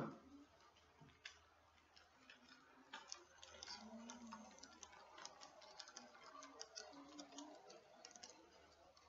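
Faint clicking and clattering of a Bachmann Big Hauler G-scale model train's wheels on the track as it passes close by, the clicks coming thickest from about three seconds in until near the end. A single knock sounds right at the start.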